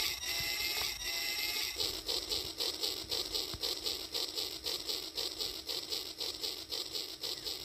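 Battery-powered toy train running along its track: a steady high tone for about the first two seconds, then rapid, regular clicking.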